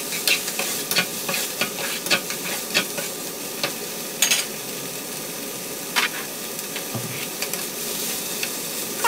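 Food frying in oil in a non-stick pan, stirred with a spatula: a steady sizzling hiss with scattered clicks and scrapes of the spatula on the pan, and sharper knocks about four and six seconds in.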